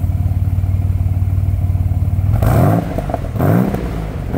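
1983 Nissan 300ZX Z31 engine idling steadily through its new Vibrant muffler and twin exhaust tips, then blipped twice a little past halfway, each rev rising quickly and dropping back to idle, with a third blip starting at the very end.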